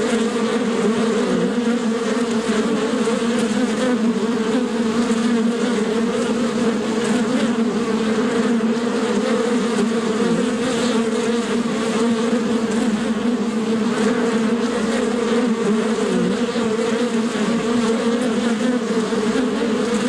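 Bee buzzing in flight: a steady drone that wavers slightly in pitch.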